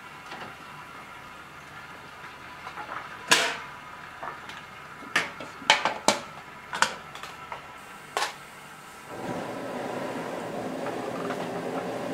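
Aluminium steamer and its domed lid clanking as noodles are loaded and the lid is set on: several sharp metal knocks, the loudest a few seconds in. About nine seconds in, a steady rushing noise starts as the gas burner under the wok is lit.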